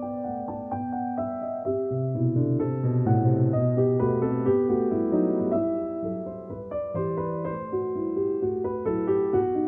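Background piano music, a gentle melody over sustained lower notes.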